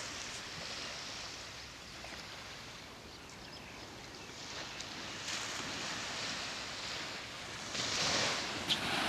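Surf washing up on a sandy beach, a steady wash of noise that swells about five seconds in and again near the end.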